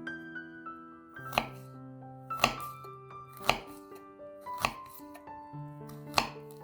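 Kitchen knife chopping on a cutting board: about five separate chops, roughly a second apart, over soft background piano music.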